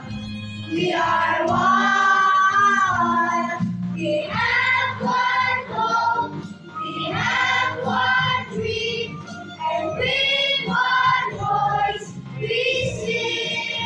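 Children's choir singing with musical accompaniment, one clear child's voice carrying the melody.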